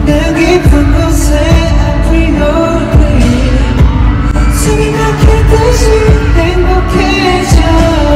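A male singer sings a pop song live into a handheld microphone over a backing track with a steady, heavy beat, heard loud through arena PA speakers.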